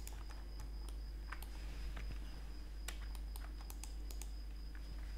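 Scattered computer keyboard key presses and mouse clicks, irregular and sparse, over a steady low electrical hum and a faint high whine.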